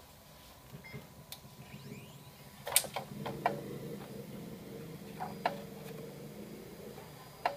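HP LaserJet Pro M225dw laser printer running with its covers off: a low, steady motor hum starts about half a second in and holds on. Over it come several sharp clicks of the mechanism, a cluster about three seconds in, two more near five and a half seconds, and one near the end.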